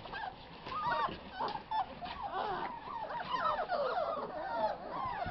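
A litter of five-week-old puppies whining and yelping, many short high cries overlapping and rising and falling in pitch.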